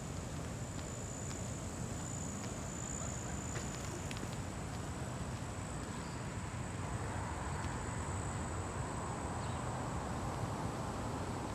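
Insects chirring outdoors in a steady high-pitched drone over a continuous low background rumble.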